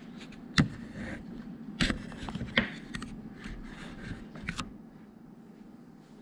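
Cardboard box and packing being handled: rustling and scraping broken by four sharp knocks over the first five seconds, then quieter handling near the end.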